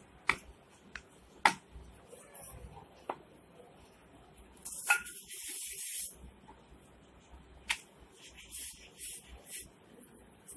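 A few sharp knocks of a wooden rolling pin against the rolling board, and a brushing hiss of a floury hand rubbing over the rolled chapathi dough about halfway through and again later.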